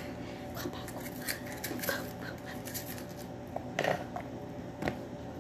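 Light handling sounds from food preparation: a few scattered clicks and knocks of utensils and dishes, the loudest two a little past the middle, over a steady low hum.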